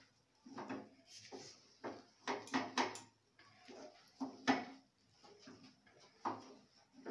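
Wooden spatula scraping and knocking against a steel kadai while a thick rice-flour and maida dough is stirred and pressed, in irregular strokes with a few louder knocks near the middle.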